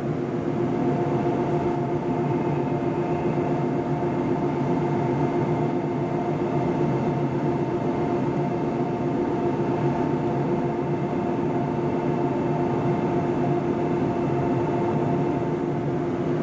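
Stationary 485-series electric train idling at the platform: a steady electric hum from its onboard equipment with a few constant whining tones, a higher one joining about a second in.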